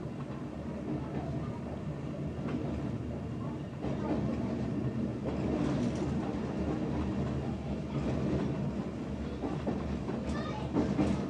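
Meitetsu 3400 series electric train running, heard from on board: a steady hum from its nose-suspended traction motors and gearing, with the clack of wheels over rail joints. It gets louder about four seconds in, and there are sharper clacks near the end.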